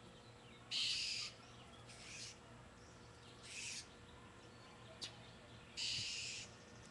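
Blue jay giving four harsh, noisy jeer calls, each about half a second long and spaced a second or two apart: scolding alarm calls aimed at a cat.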